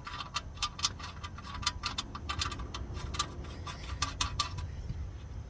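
Quick, irregular metallic clicks and clinks, several a second, as the oil drain plug is screwed back into the oil pan by hand; they stop a little past four seconds in.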